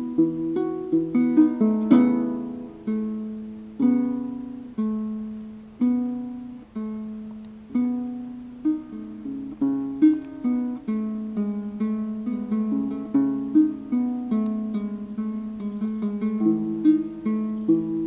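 Ngoni, a West African harp-lute with a gourd body, played solo. Single plucked notes come about once a second, each ringing and fading, with quicker runs of notes between them.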